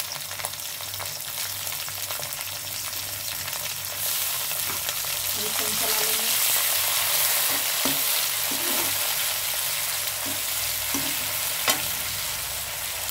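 Chopped green chillies, garlic and curry leaves sizzling in hot oil in a metal kadhai, stirred with a slotted metal spatula. The sizzle gets louder about four seconds in, and the spatula gives one sharp tap against the pan near the end.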